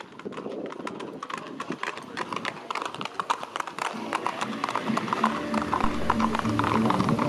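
Horses' hooves clip-clopping on an asphalt road as the horses walk past, a quick irregular run of hard clicks. Background music comes in about halfway through.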